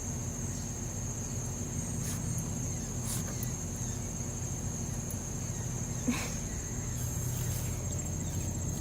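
Steady high-pitched drone of insects, with a low steady hum underneath and a few faint clicks about two, three and six seconds in.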